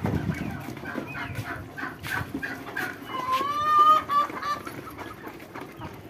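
A flock of Egyptian baladi chickens clucking while they feed, in short overlapping calls, with one longer, slightly rising call about three seconds in.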